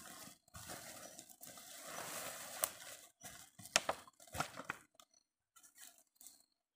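Woven plastic sack rustling and crumpling as it is folded and handled, with sharp crinkles of a thin plastic bottle. The handling stops about five seconds in, leaving only a few faint ticks.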